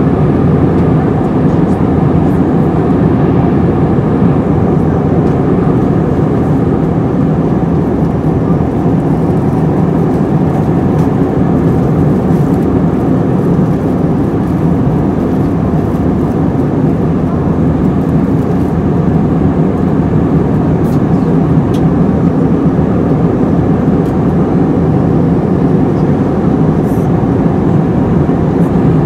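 Airbus A321-231 passenger cabin in flight: a steady, even drone of airflow and its IAE V2500 engines, heavy in the low end, with no changes.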